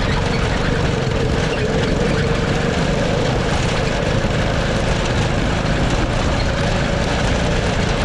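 The Murray go-kart's 5 hp Honda overhead-cam single-cylinder engine is running under load at one steady engine speed, with wind noise from the moving kart. The engine sounds awful, and the riders take this as a sign that something is wrong with it.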